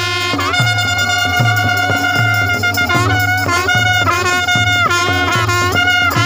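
Music: a high melody of long held notes with short slides between them, over a steady low beat.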